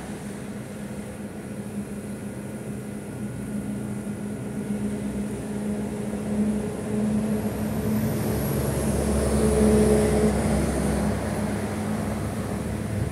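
A motor vehicle's engine running with a steady low hum. It grows louder to a peak about ten seconds in, then eases off, with a faint high whine that rises and falls along with it.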